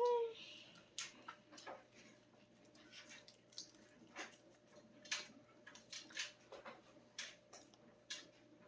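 Small plastic toy capsules and wrappers being handled and opened: irregular light clicks, taps and crinkles, about one or two a second. A brief, loud pitched squeak comes right at the start, over a faint steady hum.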